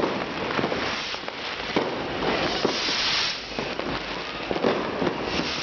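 Fireworks going off: a rapid, irregular run of pops and crackles, thickening into a dense crackling hiss about two to three seconds in.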